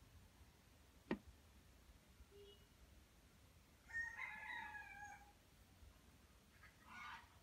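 A rooster crowing faintly in the background: one crow of just over a second about four seconds in, then a shorter call near the end. A sharp click about a second in.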